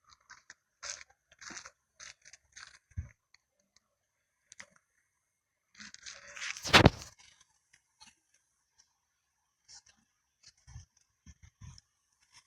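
Scattered short crunching and scraping noises, with one louder sharp sound about seven seconds in, over a faint steady high-pitched tone.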